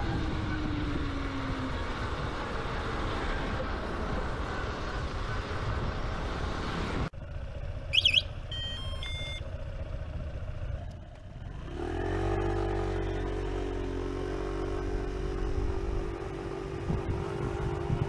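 Converted petrol-electric Honda Dream motorbike under way: wind and road noise with a faint motor tone falling in pitch. This cuts off about seven seconds in. A few short electronic chirping beeps follow, and from about twelve seconds in a motor runs with a steady hum.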